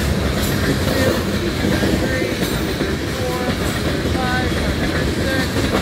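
Loaded coal cars of a long unit coal train rolling past at speed: a steady rumble of steel wheels on the rails with clickety-clack.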